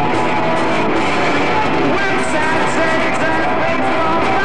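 Rock band playing loud live on electric guitar and bass guitar.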